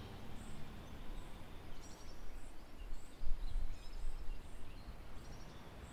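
Outdoor ambience: a low rumble of wind or handling noise that swells briefly about three seconds in, with a few faint high bird chirps.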